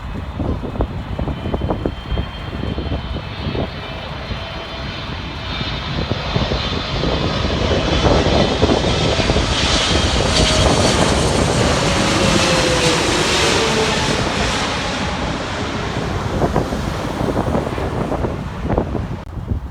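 Arriving airliner passing close by on its landing approach: the engine noise swells to a peak about halfway through, with a whine falling in pitch, then fades. Wind buffets the microphone.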